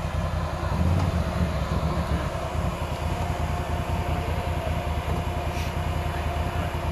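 Can-Am ATV engine running steadily at low speed with a continuous low rumble as the quad rolls slowly over a dirt road.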